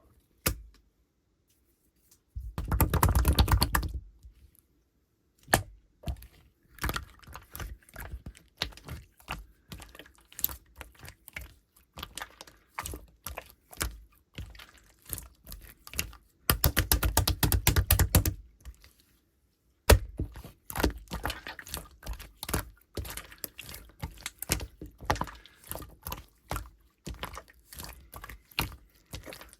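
Clear slime being squished and poked by hand, giving a stream of sharp clicking pops, with two short stretches of fast, dense, louder clicking, about three seconds in and again near the middle.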